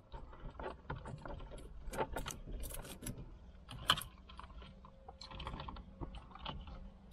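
Plastic radio wiring-harness connectors and loose wires clicking and rattling as they are handled and plugged together behind a Toyota Corolla's dashboard, with one sharper click about four seconds in.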